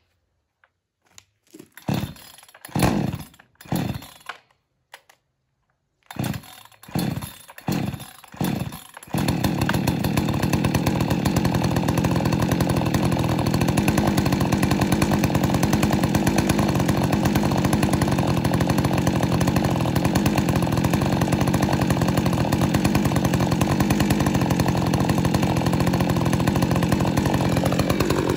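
Brand-new Perla Barb 62cc two-stroke chainsaw pull-started for the first time with the choke out: a string of starter-cord pulls, then about nine seconds in the engine catches and runs steadily. Near the end its speed drops.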